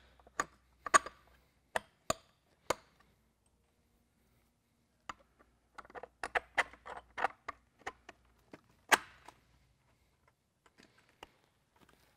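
Quick clicks and knocks of 3/8 carriage bolts and hardware being handled and pushed into a plastic drop base and metal sensor bracket. The sounds come in two bursts with a pause of about two seconds between them, and the loudest knock comes about nine seconds in.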